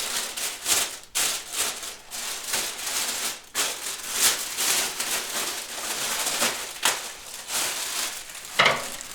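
Rustling, rubbing and light knocking as turntable parts and their packaging are handled, with a sharper knock near the end.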